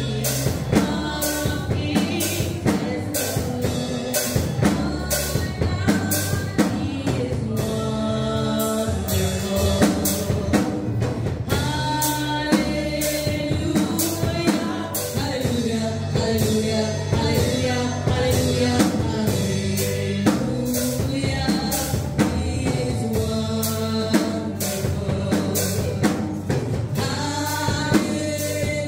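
Gospel praise song: a woman sings the lead through a microphone, with other voices joining, over a band with a drum kit keeping a steady beat.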